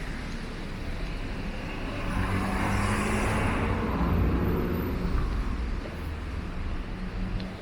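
A road vehicle passes close by: engine hum and tyre noise swell to a peak a few seconds in, then fade, over a steady street rumble.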